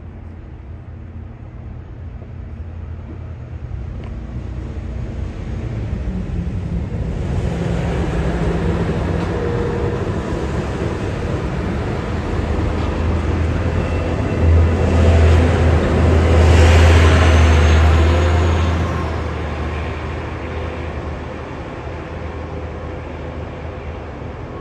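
A yellow Network Rail train passing close by. Its low rumble of wheels and engine builds up, is loudest about 15 to 18 seconds in, and then fades as it runs away. A faint falling high whine sounds at its loudest moment.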